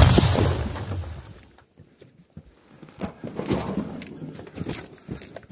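A shoulder-fired grenade launcher fires: one loud blast at the very start, its rumble dying away over about a second and a half. About three seconds in comes a stretch of irregular clattering and scraping noise.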